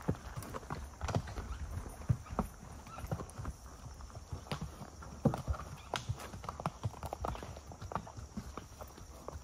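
A horse's hooves striking a dirt woodland trail at a walk: irregular knocks, several a second, over leaf litter and sticks.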